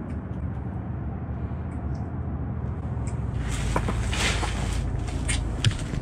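A steady low hum. A little past halfway it is joined by rustling and a few sharp knocks as the camera is picked up and handled.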